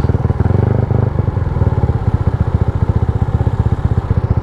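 Yamaha Y15ZR's freshly rebuilt 150 cc single-cylinder four-stroke engine running at low revs with an even stream of exhaust pulses, and a short rise in revs about half a second in. It is on its first ride after the rebuild, with no odd noises.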